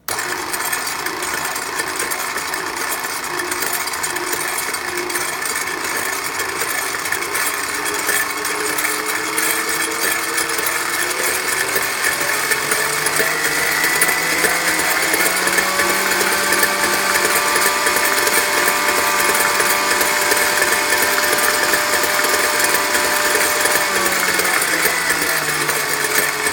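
Kenwood A701A food mixer's electric motor running loudly, its whine rising in pitch over the first fifteen seconds as it speeds up, holding steady, then starting to fall near the end as it slows.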